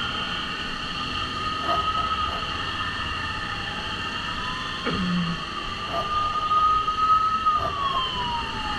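Ambulance siren wailing, its pitch sweeping slowly down and back up in long cycles, over steady traffic noise.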